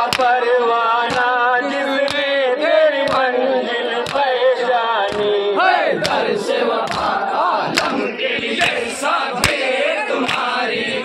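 A crowd of men chanting a Muharram mourning chant in unison, with a sharp slap of hands on chests about once a second (matam). About halfway through, the steady chant breaks into louder, ragged shouting and the slaps come faster and less evenly.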